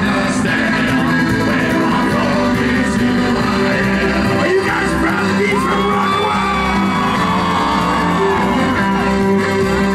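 Live Irish-rock band playing an instrumental passage: fiddle, acoustic guitar, electric bass and cajon over a steady beat, with voices whooping and shouting over the music.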